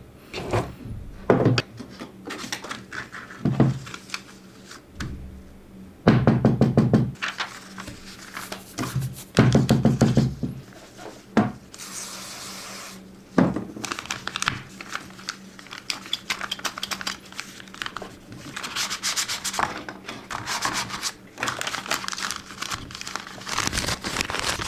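A sheet of paper being handled and folded: rubbing and creasing with scattered knocks on a hard surface, and a few louder bursts partway through.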